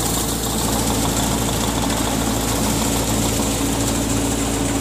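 Belt-driven wheat thresher running while threshing, a steady machine drone over a dense hiss.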